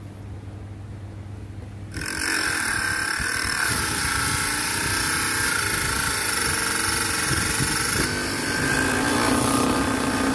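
A small motor-driven abrasive disc grinding a hand-held piece of PVC plastic. The loud, steady grinding with a whine starts suddenly about two seconds in and changes tone slightly about eight seconds in.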